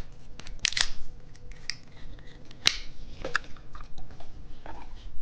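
Scattered crinkles and sharp clicks of plastic candy packaging being handled and opened, with a few louder snaps.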